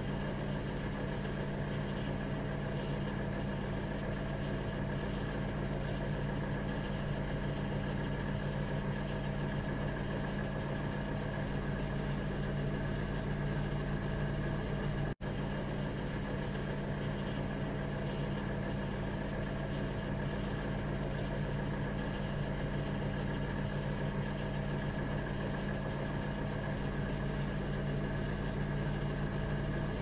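Microwave oven running, a steady low electric hum. It cuts out for an instant about halfway through.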